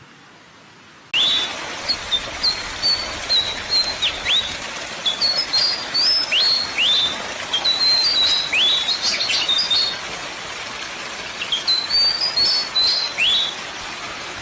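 Several small birds chirping: many quick high chirps and short downward-sweeping calls, over a steady hiss. It starts suddenly about a second in.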